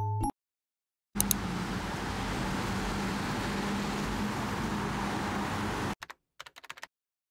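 Steady street ambience outside a shopfront: an even wash of noise with a low steady hum under it, starting about a second in with a couple of clicks and cutting off suddenly. A few faint clicks follow near the end.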